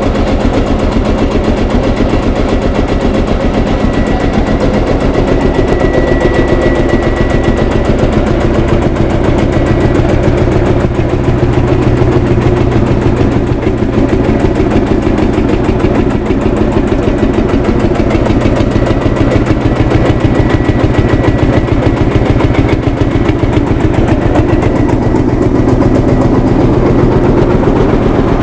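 Field Marshall Series 3 tractor's single-cylinder two-stroke diesel engine running steadily, with an even, rapid beat.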